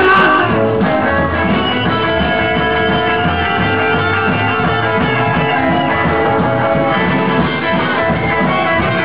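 Live rock and roll band playing with no vocals: guitar over a steady, repeating upright double bass line.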